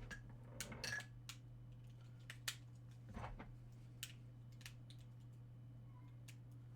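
Faint, scattered clicks and light plastic rattles of AA batteries being handled and pushed into a plastic battery pack.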